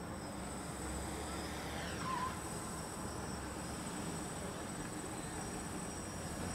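F-450 quadcopter's brushless motors and propellers buzzing in flight, a steady high whine, with a brief falling whistle about two seconds in.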